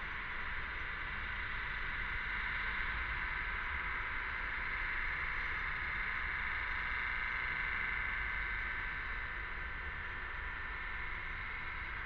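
Chorus of cicadas buzzing steadily, swelling a little midway and easing slightly toward the end, over a low rumble.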